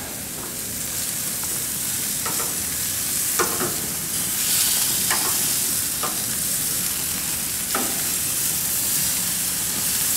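Black grouper fillets sizzling on a very hot grill, a steady high hiss, with about five short scrapes or clicks of a utensil on the grate as the fish is flipped.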